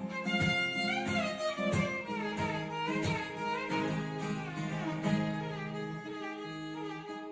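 Instrumental background music: a violin melody with sliding notes over plucked-string accompaniment.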